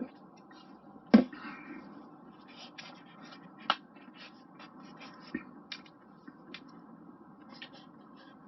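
Someone eating a burger and chips: scattered small clicks, scratches and mouth sounds of handling and eating food, with one sharp knock about a second in.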